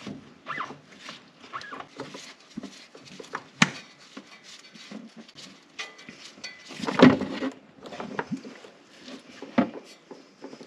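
Scattered clicks, scrapes and handling noise as the plastic hydrostatic transmission filter on a Kubota BX1870 tractor is gripped with filter pliers and unscrewed by hand. There is a sharp click about three and a half seconds in and a louder clatter about seven seconds in.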